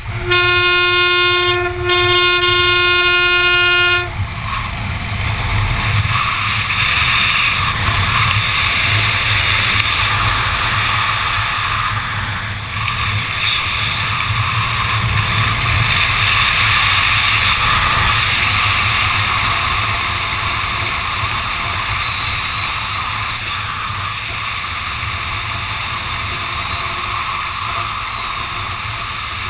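Wind rushing over the camera microphone during a parachute canopy descent. Near the start, two long steady tones sound one after the other, the second longer, and stop about four seconds in.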